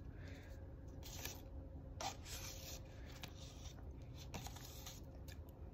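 Knife spreading peanut butter onto apple slices: a few faint, soft scraping strokes.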